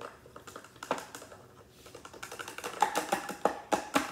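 Quick clicks and knocks of hard plastic as a slime kit's mixing tube and its cap are worked in the kit's plastic stand. The clicks come faster and louder in the second half.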